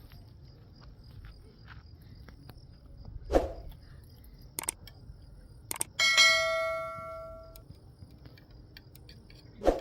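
A single struck metallic ring, bell-like, about six seconds in, fading over a second and a half; it is the loudest sound. Before it come a dull thud and a couple of sharp knocks, with another thud near the end, over crickets chirping steadily.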